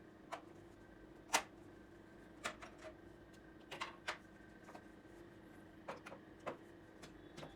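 About a dozen irregular light clicks and taps from hands handling a Dell OptiPlex 3070 Micro mini PC to upgrade its RAM, the sharpest about a second and a half in, over a faint steady hum.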